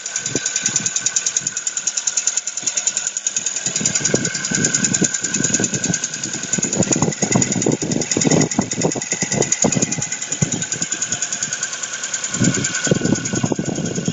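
Ford Focus 2's 1.6 four-cylinder petrol engine running with a rapid, even knock, and heavier low thuds that come and go. The knock comes from a damaged cylinder after a piece of spark-plug ceramic fell into it.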